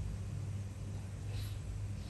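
A steady low background hum, with one faint brief hiss about one and a half seconds in.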